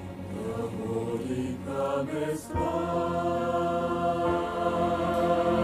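Slow gospel song introduction: sustained held chords with a choir's wordless held notes. The chord changes about two and a half seconds in.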